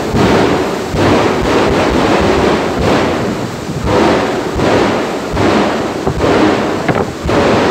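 Fighter-jet turbine engine of a jet dragster running loud at the start line, a dense rumbling noise that surges and eases several times.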